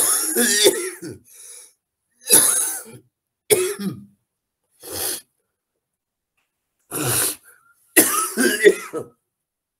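A man coughing and clearing his throat repeatedly, about six separate coughs with pauses between them, the last a longer, rougher fit near the end.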